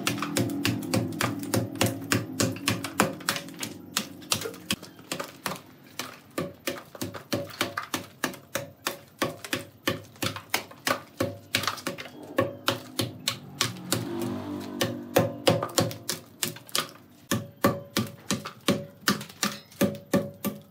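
Hatchet chopping bark and rotten wood off a large log, quick repeated strikes about two to three a second.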